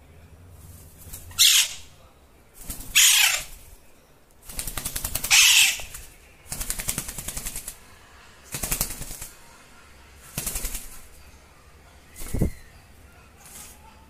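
Alexandrine parrot calling: three loud, harsh screeches falling in pitch in the first six seconds, then several shorter bursts of rapid pulsed, rattling sound about every two seconds. A sharp knock comes near the end.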